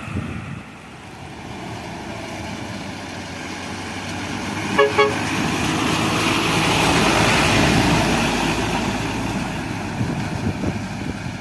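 Heavy truck engine running and drawing close, its noise swelling to a peak past the middle and easing off again, with two short horn toots about five seconds in.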